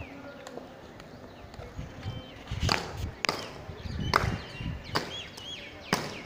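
Marching soldiers' boots stamping hard on the pavement: a series of sharp stamps starting about two and a half seconds in, roughly every half second to a second, with birds chirping in the background.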